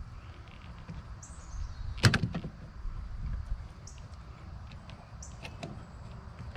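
Sharp click about two seconds in, followed by a few lighter clicks and taps, as the plastic interior door handle and its lock rod are worked loose from the truck door. Faint short bird chirps sound now and then.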